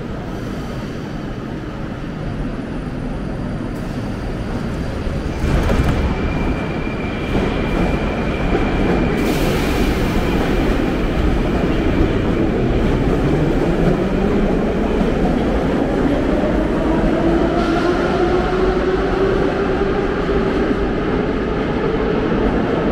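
Moscow Metro train running and getting louder, then accelerating from about halfway through, its traction motors giving a whine that climbs steadily in pitch over a steady rumble.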